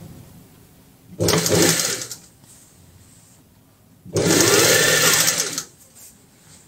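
Industrial sewing machine stitching a seam in two short runs, one about a second long and a second about a second and a half long, with a pause between them.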